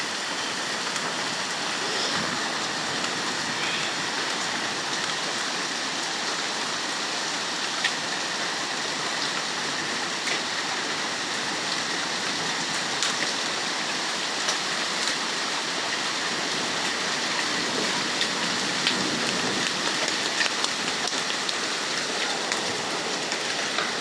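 Heavy rain pouring down steadily, with scattered sharp drops hitting close by.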